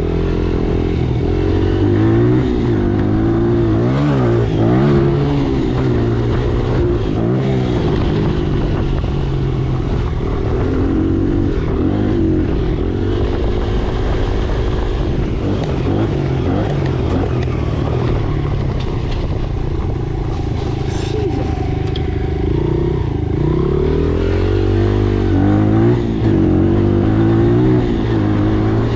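Dirt bike engine running, its pitch rising and falling again and again as it is revved and eased off, with bigger swings about four seconds in and near the end.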